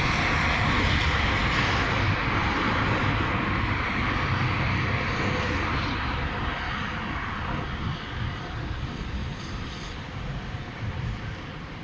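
Aircraft passing, a steady rushing engine noise that fades away over the few seconds.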